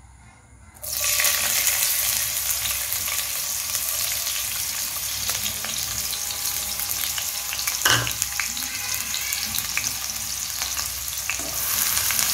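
Chopped onions hitting hot oil in a frying pan, which bursts into a steady sizzle about a second in and keeps sizzling as they are stirred with a spatula. One sharp knock against the pan comes about eight seconds in.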